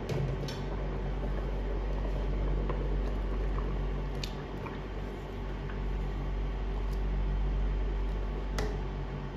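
Rice boiling in water in a stainless steel stockpot, being stirred with a long metal ladle that clicks sharply against the pot a few times. Under it runs a steady low hum from the induction cooktop. The rice is being parboiled for dum biryani.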